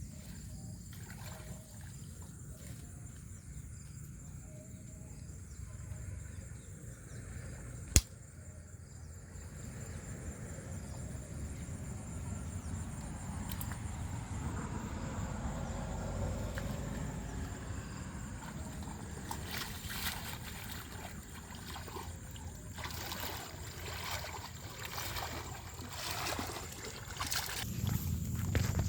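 Water sloshing and trickling, with splashes coming thicker and louder through the second half; a single sharp click about eight seconds in.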